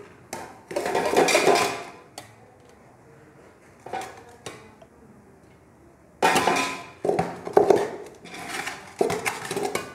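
A plate scooping drained rice out of a steel colander and tipping it into a steel pot: scraping and clattering of plate on metal in bursts, one about a second in, a few light knocks around four seconds, and a run of scoops in the last four seconds.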